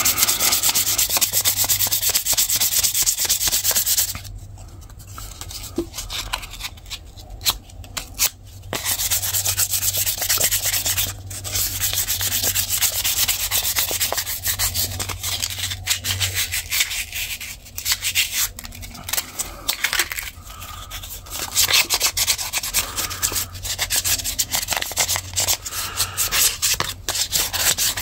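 400-grit sandpaper rubbed back and forth by hand over wooden knife scales in quick strokes, a final smoothing pass. The sanding stops for about four seconds, a few seconds in, then carries on with short pauses.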